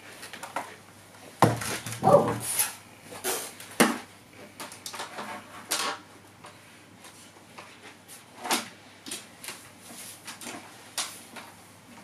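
Large plastic dinosaur toys handled and set down on a table: scattered knocks and clacks. About a second and a half in, a short roar-like growl.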